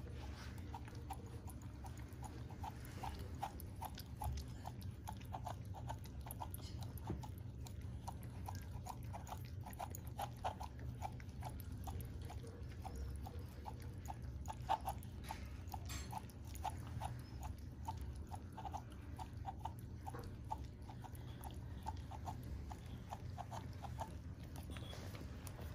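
Small dog lapping a creamy iced drink from a plastic cup with a dome lid, a steady rhythm of short wet licks, a few a second.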